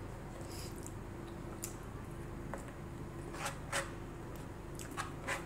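Close-up eating sounds: chewing milkfish and rice with a handful of short, wet mouth smacks, the loudest a pair about halfway through and two more near the end, over a steady faint hum.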